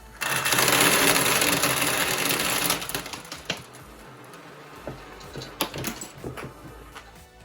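A load of small marbles spilling out of a LEGO EV3 marble printer as it is cleared: a dense rattling clatter for about two and a half seconds, then scattered clicks of stray marbles, with one sharp click at the very end.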